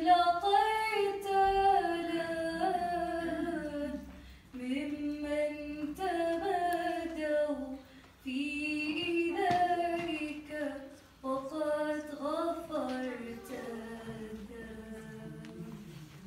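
Female voices singing an Arabic Passion hymn in phrases with short breaks between them, growing softer near the end.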